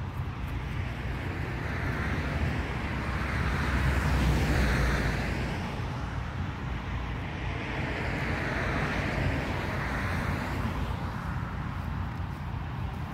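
Road-vehicle rumble under wind noise buffeting the microphone. It swells about four seconds in and again near eight seconds.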